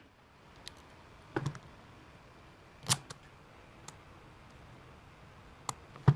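Short metallic clicks and taps from a screwdriver turning a bolt into an electric fan's metal motor housing, about six in all; the loudest come about three seconds in and at the very end.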